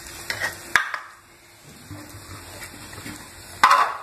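Light knocks and clinks of kitchen utensils at a frying pan as spices and salt go in: a few in the first second, then a louder short clatter near the end.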